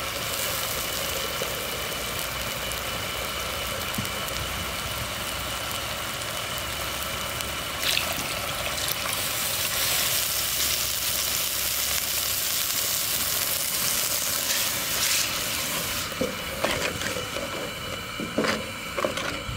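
Onion-tomato masala and freshly added water sizzling and simmering in a clay cooking pot, a steady hiss that grows a little brighter midway. In the last few seconds a wooden spoon stirs the gravy, with irregular scrapes and knocks against the clay pot.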